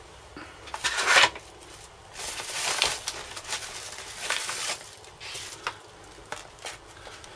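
Clear plastic blister packs and a padded paper mailing envelope crinkling and rustling as they are handled, in several short bursts, the sharpest about a second in.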